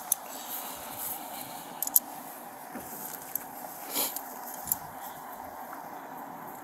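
A few light metallic clicks of a pair of steel handcuffs being handled, the loudest about four seconds in, over a steady background hiss.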